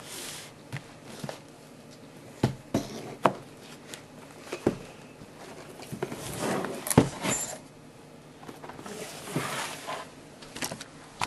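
A motherboard's cardboard retail box being opened and handled by hand. A handful of sharp taps and knocks come from the cardboard and its contents, with stretches of rustling from the packaging, one a little past the middle and another near the end.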